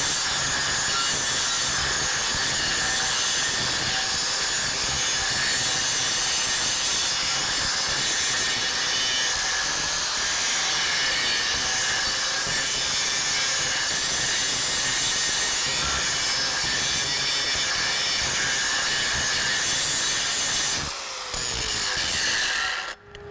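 Angle grinder with a grinding wheel running steadily against a steel plate weld, cleaning up the 6010 root pass before the next pass. The grinding dips briefly near the end.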